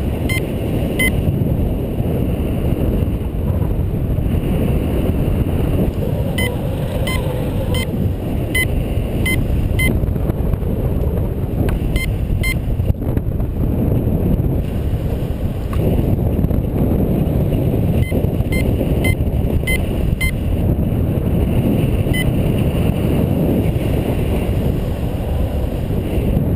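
Airflow buffeting the microphone in paraglider flight, a steady low rush. Over it come runs of short, high, evenly spaced beeps, the kind a paragliding variometer gives when the glider is climbing.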